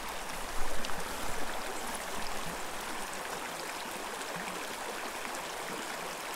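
Small, shallow mountain creek running over rocks, a steady burble, with a few brief louder noises in the first couple of seconds.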